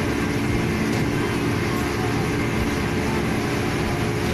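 Motorboat engine running steadily while the boat is underway at speed, a constant drone with a rush of wind and water over it.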